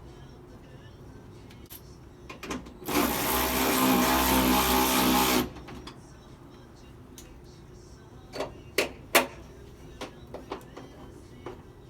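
A handheld power tool's motor runs steadily for about two and a half seconds, driving in a door hinge bolt, followed by a few sharp metal clinks.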